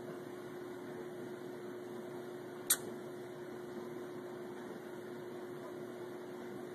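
A steady low hum over faint hiss, with one short sharp click a little under three seconds in.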